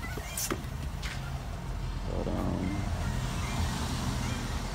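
Steady low rumble of a motor vehicle running, swelling a little about two seconds in, with a few faint short high chirps and light clicks over it.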